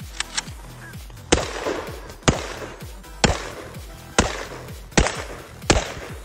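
TG2 carbine in .366 TKM firing six single shots about a second apart, each followed by a ringing echo. Electronic music with a steady beat plays underneath.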